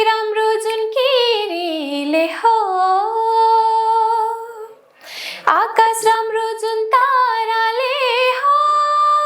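A woman singing a Nepali folk tune (bhaka) unaccompanied, in two long phrases with wavering ornaments and long held notes, and a short breath about five seconds in.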